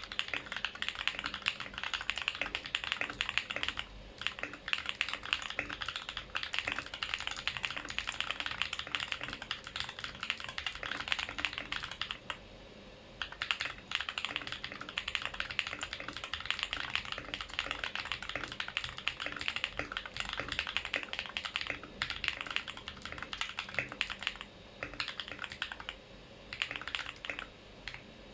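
Mode 80 mechanical keyboard with Holy Panda tactile switches being typed on at a steady, fast pace: a dense run of keystroke clacks. There is a pause of about a second around the middle and a few shorter breaks near the end.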